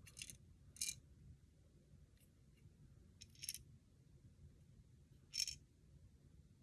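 Small ball rattling inside a handheld ball-maze puzzle toy, in four short, high rattles a second or two apart.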